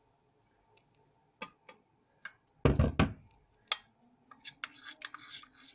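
A few light clicks, then a heavy knock about halfway through, followed by a metal utensil clinking and scraping against a ceramic bowl as flour and water are stirred into a paste.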